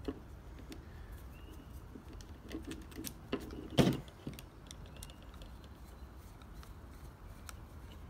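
Scattered light clicks and taps of metal and plastic parts as a door latch assembly and its power door lock actuator are handled and fitted together, with one sharper knock about four seconds in.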